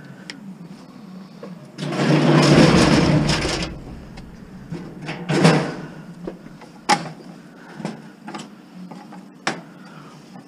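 Handling noise while scrap is pulled off curbside stoves: a loud, rough rustling noise lasting about two seconds, then a few scattered sharp clicks and knocks.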